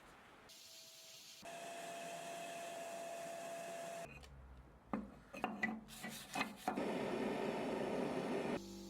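Hand-tool work on wood in short cut-together clips: steady rubbing and rasping, like sanding or filing, and a cluster of sharp knocks about halfway through.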